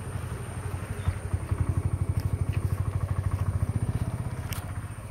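A small engine running with a fast, even pulsing beat, swelling about a second and a half in and easing off near the end.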